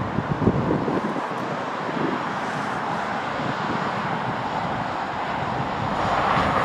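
Steady rush of motor-vehicle noise with wind buffeting the microphone, swelling louder near the end.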